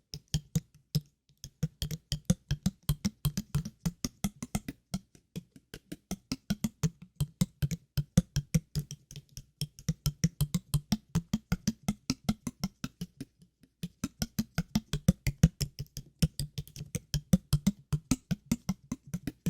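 Water-drop sounds: a quick, irregular run of short plopping clicks, about four to five a second, with a brief pause about a second in and another near thirteen seconds.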